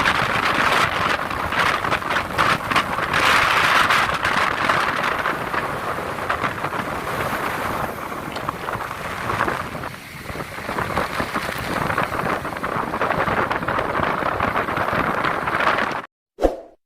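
Strong storm wind blowing hard across the microphone, a dense rushing noise that rises and falls in gusts and eases briefly partway through, then cuts off suddenly near the end.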